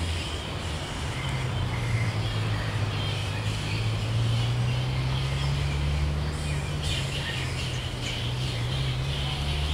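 A roosting colony of flying foxes chattering and squabbling: many high, scratchy calls overlapping, denser about seven seconds in, over a steady low rumble.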